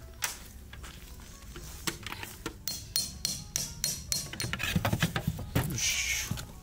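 Knocks, clicks and clatter of camp gear being handled: black metal gear cases on a folding stand and their legs, then a scraping slide near the end as a wooden board is laid down, all under background music.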